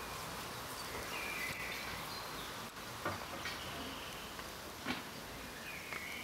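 Outdoor garden ambience: a steady background hiss with a few short bird chirps about a second in and again near the end, and two faint clicks.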